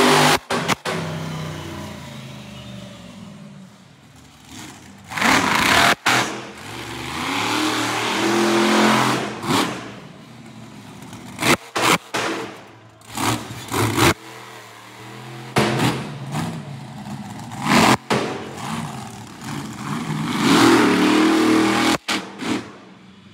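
Monster truck engine revving hard in repeated swells, rising and falling in pitch. The sound breaks off and jumps abruptly several times.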